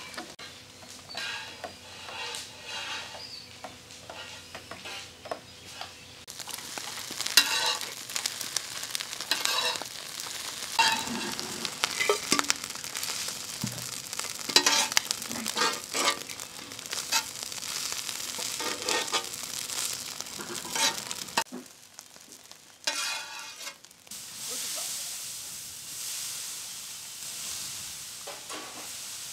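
Cooking sounds: for the first few seconds a spoon stirs and clinks in a steel vessel, then a metal spatula scrapes and stirs shredded mutton frying with a sizzle on an iron griddle.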